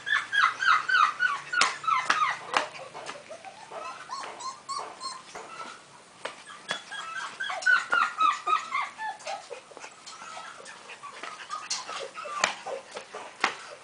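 Five-week-old golden retriever puppies whimpering and yipping in quick runs of short, high cries that fall in pitch, with a few sharp clicks between the runs.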